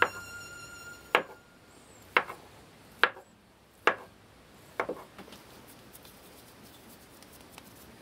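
Chef's knife cutting through a log of shortbread dough and knocking on the wooden tabletop, about once a second: six sharp knocks, the last a quick double, then quiet.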